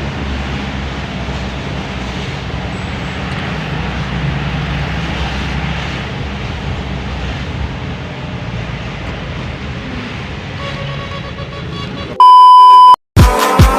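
A vehicle engine idling steadily, being warmed up after standing unused in the garage for a long time. Near the end, a loud steady electronic beep cuts in for under a second.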